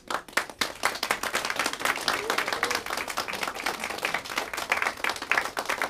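Audience applause: many hands clapping, breaking out suddenly, with some voices among the claps.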